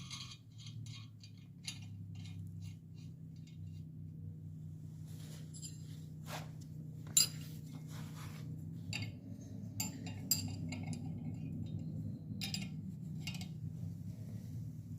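Irregular metallic clinks and taps, as of metal parts or tools knocking together, over a steady low hum. The loudest clink comes about seven seconds in.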